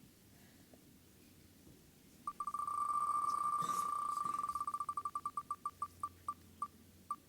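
Prize wheel spinning: a fast run of sharp, high ticks that blur together at first, then slow and space out until it nearly stops.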